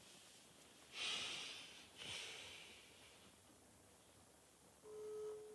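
Two heavy breaths out, about a second apart, then a phone's ringing tone: a steady single-pitch beep just above 400 Hz, like the German ringback tone, starting near the end as a call is placed.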